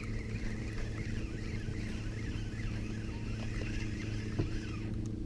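Boat engine idling with a steady, even hum. A small knock comes about four seconds in.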